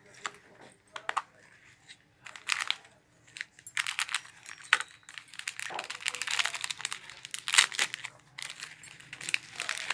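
Plastic packaging crinkling and rustling as it is handled and unwrapped, with sharp clicks from a small clear plastic box being opened; the rustling becomes almost continuous about halfway through.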